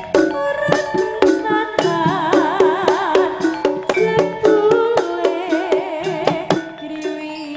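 East Javanese jaranan gamelan music played live: quick kendang drum strokes over ringing metallophone and gong notes. A melody with a strong wavering vibrato comes in about two seconds in and runs for a couple of seconds.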